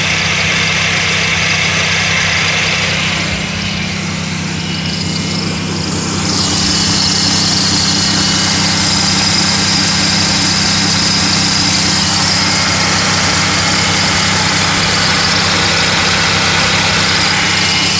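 Pontiac Aztek's 3.4-litre V6 idling with its electric radiator cooling fans running at low speed, commanded on by a scan tool during an overheating check: a steady engine hum under a rush of air. The air rush gets louder about six seconds in.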